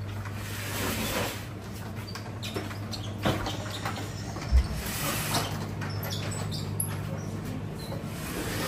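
Grocery store ambience: a steady low hum, likely from the drink coolers, under scattered clicks and handling rustles, with one dull thump about halfway.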